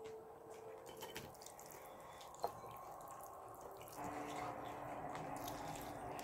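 Wet, squishy sounds of chopsticks lifting sauce-coated jjolmyeon noodles from a ceramic bowl, with a single sharp click about two and a half seconds in.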